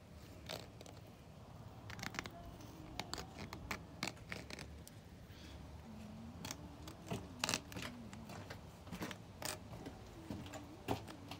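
Faint, irregular clicks and scrapes, with a faint wavering hum twice, once around the middle and once near the end.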